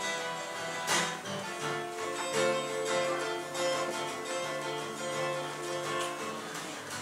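Acoustic guitar being strummed, ringing chords with a sharp strum about a second in.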